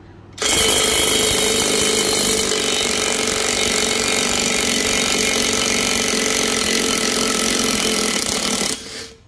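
Green 520 Nm brushless cordless impact wrench hammering steadily for about eight seconds to break loose and undo a tightly torqued 27 mm nut. It starts suddenly about half a second in and stops shortly before the end.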